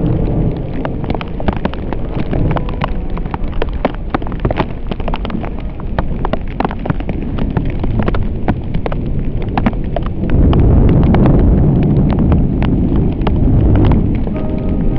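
Storm rain with many irregular sharp raindrop ticks striking the camera, over a low rumble that grows louder about ten seconds in.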